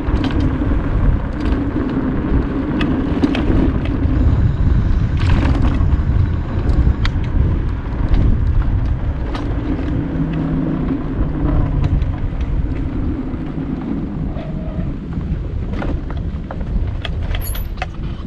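High-speed mobility scooter riding along a paved road: a steady low rumble of motor and tyres, with scattered clicks and rattles from bumps.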